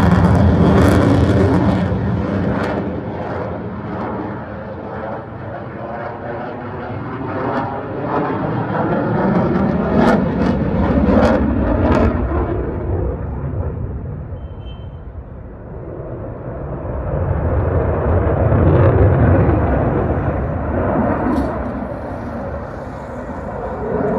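Fighter jet engine noise from a jet passing overhead during an airshow. It swells and fades three times, loudest about a second in, again around ten to twelve seconds in and around nineteen seconds, with a sweeping, phasing tone as it passes and a few sharp cracks in the first half.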